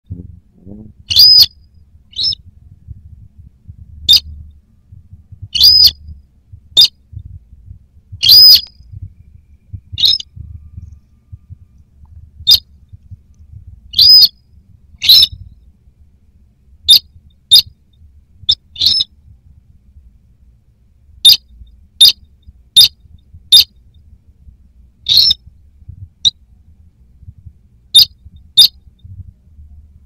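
Buff-banded rail calling: short, sharp, high-pitched notes, some single and some in quick pairs, repeated about once a second at uneven intervals.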